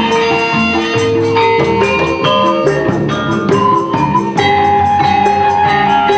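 Javanese gamelan music accompanying a wayang performance: struck metal percussion plays quick, evenly paced notes at changing pitches. About two-thirds of the way through, a long held higher note comes in over it.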